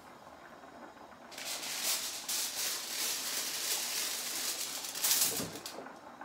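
Crinkly rustling of a clear plastic bag being handled, starting about a second in, loudest just before it stops near the end.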